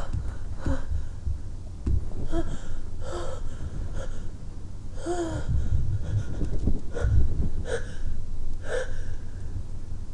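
A man's short, voiced gasping breaths, about eight of them spread over several seconds, with low muffled thumps underneath: the catching inhalations of a sneeze building up.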